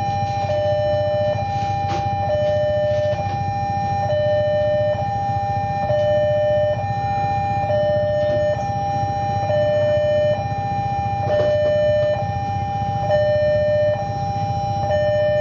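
Railway level-crossing warning alarm sounding: a steady electronic tone with a slightly lower tone switching on and off about every second, giving a regular two-tone pattern. A low rumble of the departing train runs underneath, with a couple of brief clicks.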